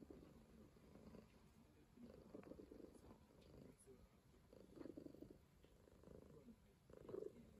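Calico cat purring faintly, the purr swelling and fading with each breath about once a second.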